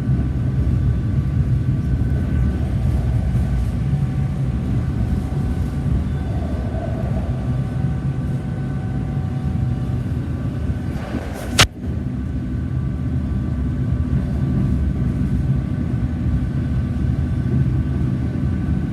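PATCO Speedline rapid-transit train running, heard from inside the car: a steady low rumble with a few faint steady whining tones over it, and one sharp click about two-thirds of the way through.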